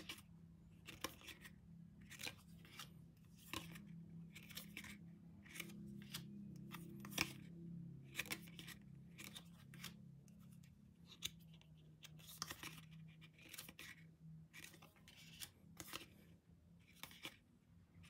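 Photo cards being handled: cards slid off a stack and pressed onto a wall, giving faint, irregular clicks, taps and rustles. A faint low hum runs underneath.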